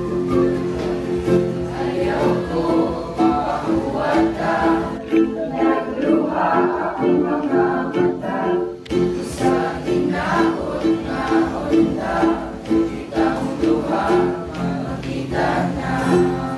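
A ukulele strummed in a steady rhythm while a group of voices sings along together.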